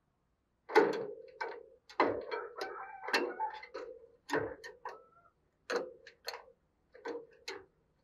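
Spotted dove moving about in its wire cage: a string of about nine sharp, irregular knocks and taps, each with a short ring, some close together in pairs.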